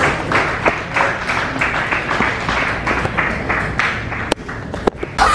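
Crowd applauding, a dense patter of many hands clapping, with a sharp click about four seconds in.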